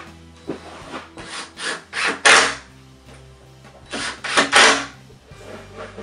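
Short rasping, scraping strokes of wood being worked during the assembly of a wooden bed frame. There is a run of four, each louder than the last, then three more about a second and a half later, over steady background music.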